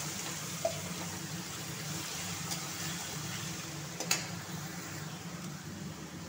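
Chopped onion, ginger and garlic sizzling steadily in hot oil in a steel kadai while being stirred. There are two sharp scrapes of the spatula against the pan, one near the start and one about four seconds in.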